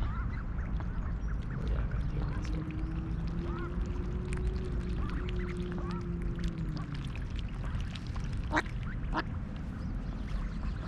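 Mallards, a hen and her nearly grown brood, calling with short soft quacks and peeps over a low steady rumble, with two sharper, louder calls near the end.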